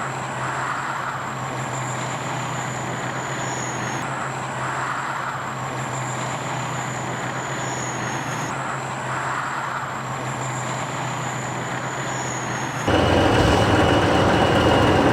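Heavy vehicle engines running steadily with a low drone and a faint high whine. About two seconds before the end, the sound jumps abruptly to a louder, rougher engine noise.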